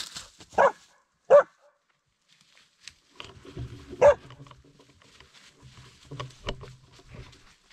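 Hunting dog bay-barking at wild boar (a sow and piglets) it is holding at bay. There are three loud, short barks: about half a second in, at about one and a half seconds, and about four seconds in.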